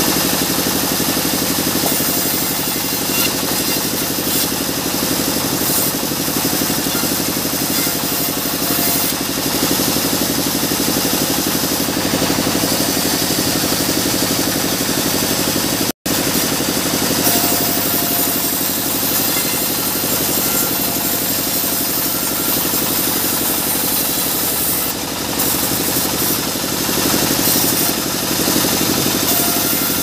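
Sawmill band saw running steadily, its blade cutting through mahogany boards fed by hand, with a momentary break in the sound about halfway through.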